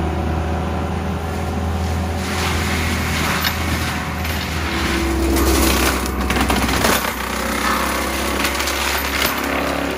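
CAT 299D3 compact track loader's diesel engine running steadily under load while its CIMAF forestry mulcher head grinds through brush. The shredding noise swells from about two seconds in, with sharp cracks as woody stems are chewed up.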